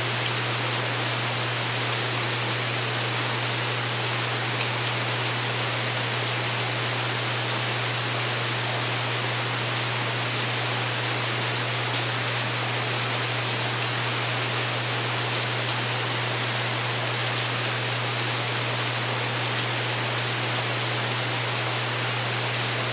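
Steady rain pattering on a porch roof, an even hiss of many drops with no single strikes standing out. A steady low hum runs underneath it.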